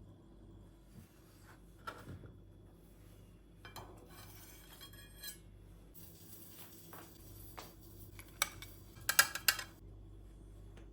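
Dishes and cutlery being handled in a kitchen: scattered clinks and knocks, a short rattle about four seconds in, and a quick run of louder clinks near the end.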